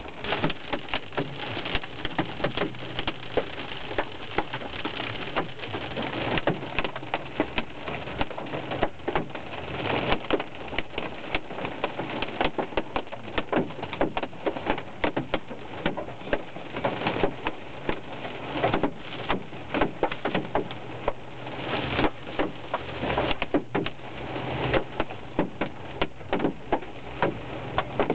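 Hailstones pelting a car's roof and windshield, heard from inside the cabin: a dense, irregular clatter of sharp taps over a steady low hum from the moving car.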